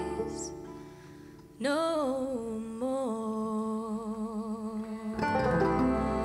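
Live acoustic folk music: a double bass bowed slowly, holding a long note with vibrato after the band's chord dies away. Other instruments come back in about five seconds in.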